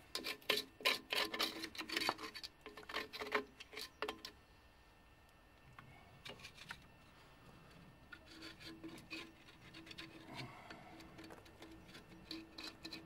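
Hand scrubbing and scraping grime off a rusty drum brake backing plate fouled by a leaking wheel cylinder: a quick run of rasping strokes for about four seconds, a short lull, then softer, sparser strokes.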